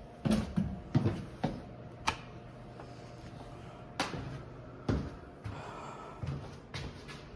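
Footsteps going down a staircase: a series of unevenly spaced thuds and knocks, mostly in the first five seconds.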